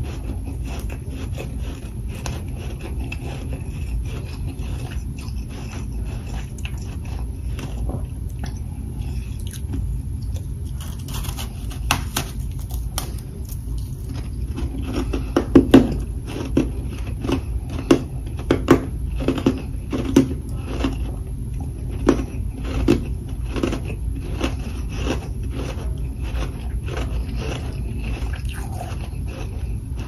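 Humidifier freezer frost being bitten and chewed close to the microphone: a run of crisp, crunchy chews, coming thicker and loudest from about halfway in, over a steady low hum.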